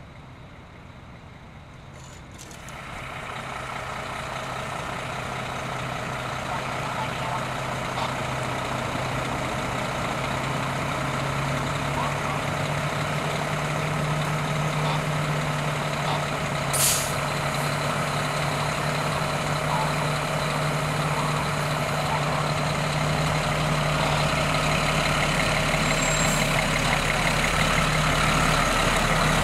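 Diesel fire-truck engines running, growing louder about three seconds in and climbing further toward the end as a truck pulls out. A short hiss of air brakes releasing comes about 17 seconds in.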